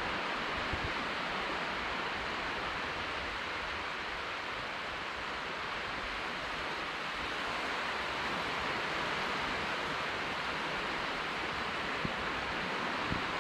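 Small waves breaking along a flat sandy shore, heard as a steady, even hiss of surf.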